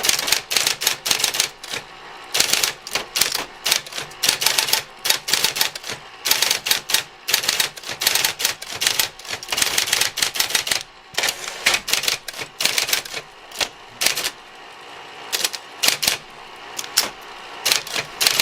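Olivetti 660C electric typewriter being test-typed: a rapid, irregular run of powered type-bar strikes against the platen, with a few short pauses.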